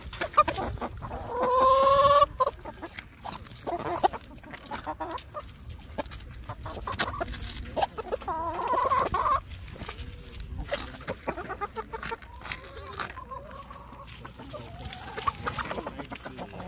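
A flock of hens and roosters clucking, with a loud drawn-out call about a second and a half in and another about eight seconds in.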